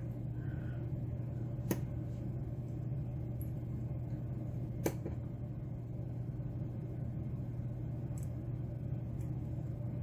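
Two small, sharp metal clicks about three seconds apart over a steady low hum: tweezers setting key pins into a brass padlock core.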